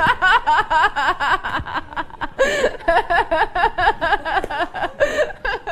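Hearty human laughter: fast, rhythmic "ha-ha-ha" bursts running on without a break.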